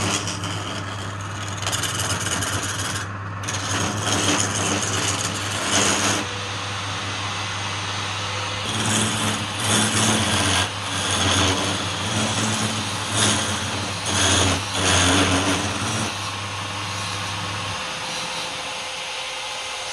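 Woodturning lathe running with a steady hum, with repeated louder passes of something scraping against the spinning wood. The motor hum stops about two seconds before the end.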